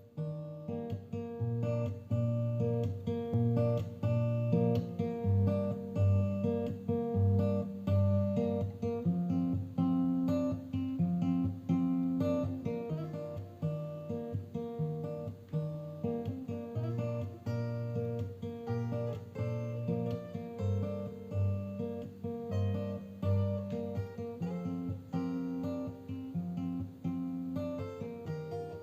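Acoustic guitar music, plucked and strummed notes over a bass line with a steady beat.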